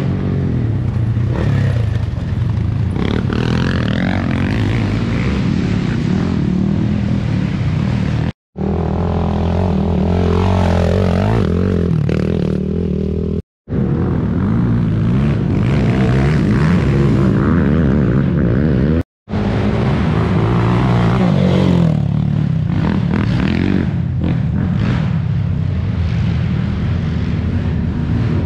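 Racing quad (ATV) engines revving up and down as riders accelerate and ease off, the sound dropping out to silence three times for a split second.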